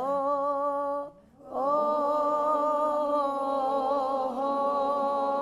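A single voice singing sustained notes as a vocal exercise: a note held for about a second, a brief breath, then a long note held for about four seconds with a slight waver.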